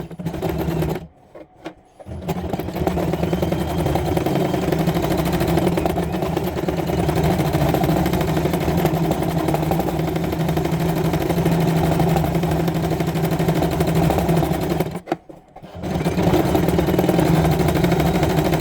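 Janome domestic sewing machine running steadily as it stitches, stopping briefly twice: about a second in and again about fifteen seconds in.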